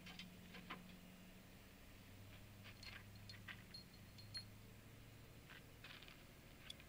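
Near silence: faint outdoor background with scattered soft clicks and ticks.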